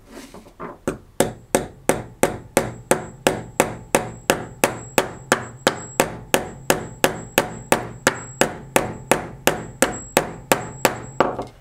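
Hammer tapping the copper heat pipe of a laptop heatsink in a steady run of light, even blows, about three a second, starting softly and stopping shortly before the end. The blows are beating out the wrinkles and crimp in the bent heat pipe.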